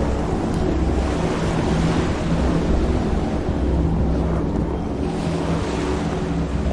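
Steady rain falling in a forest, a dense unbroken hiss, with a low held drone underneath that fades in and out.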